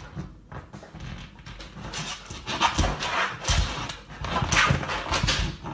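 Siberian husky panting, the breaths getting louder about two seconds in, with a couple of dull thumps.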